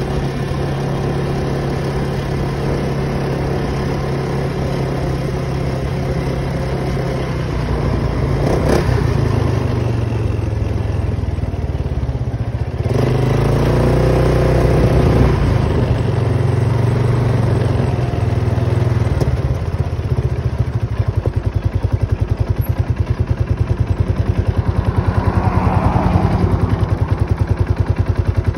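Polaris Sportsman 570 ATV's single-cylinder engine running under way, picking up speed past the halfway mark, then dropping back to an idle with an even pulsing beat for the last several seconds as the machine stops.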